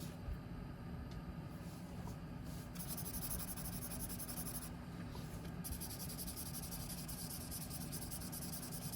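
Blending stump rubbing across drawing paper, a faint scratchy hiss of back-and-forth strokes that pauses briefly around the middle.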